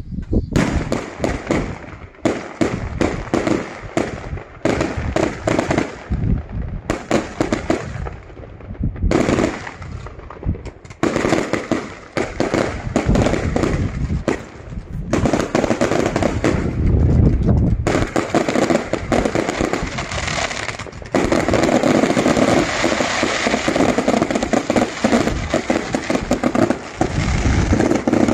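A fireworks display: a rapid run of sharp bangs from shells launching and bursting. For the last several seconds it thickens into a near-continuous crackle.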